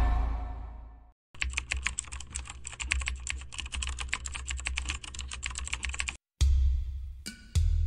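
Rapid, irregular keyboard-typing clicks, a typing sound effect running for about five seconds under text being typed out on screen. Before it the previous sound fades away, and loud low beats of music start near the end.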